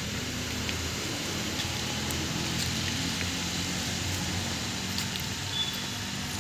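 Steady outdoor background noise, an even hiss over a low hum, with a few faint ticks scattered through it.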